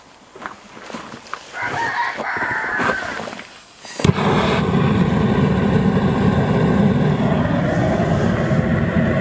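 Propane turkey-fryer burner being lit under a pot of maple sap: it catches suddenly about four seconds in and then burns steadily with a loud even rush.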